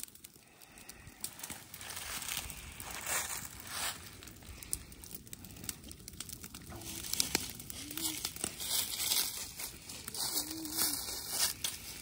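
Dry grass and fallen leaves burning in a small brush fire, crackling with many small irregular pops.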